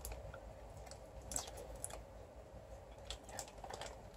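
A few faint, scattered clicks and crinkles of a plastic-and-paper burrito wrapper being handled.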